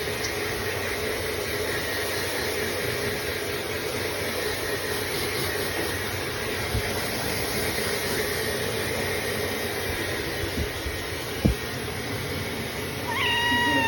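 A hair dryer blowing steadily while drying a wet ragdoll cat, with a short knock late on. Near the end the cat lets out a meow.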